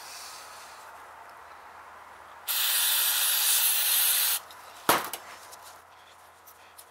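Aerosol brake cleaner sprayed in one steady hiss of about two seconds, flushing out a ratchet head whose reversing lever is stuck. A sharp click follows, then light clicking as the ratchet parts are handled.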